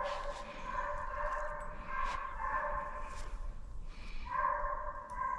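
A pack of deer-hunting hounds baying on a chase, several voices overlapping in long drawn-out howls that shift in pitch and swell near the end.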